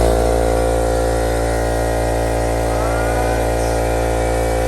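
Newly bought air compressor running after being switched on, a loud, steady motor-and-pump hum that holds one even pitch.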